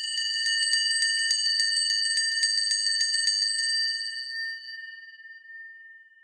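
A small metal bell rung with rapid repeated strokes for about three and a half seconds, then left to ring out and fade away.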